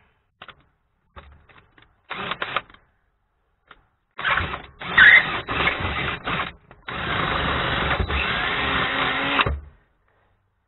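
DeWalt 20V cordless drill boring into the steel frame rail, opening a pilot hole to bolt size. A few short trigger bursts come first. Then one steady run of about two and a half seconds cuts off sharply near the end.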